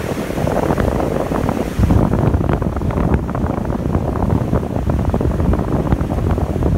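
Wind buffeting the microphone over the rush of fast-flowing floodwater; the buffeting gets heavier about two seconds in.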